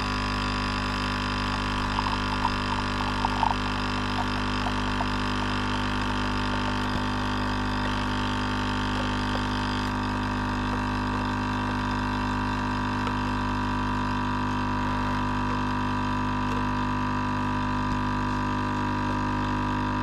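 Kotlie AC-513K 4-in-1 capsule espresso machine's pump running with a steady, even drone as espresso pours into the cup. A few brief louder sounds come about two to three and a half seconds in.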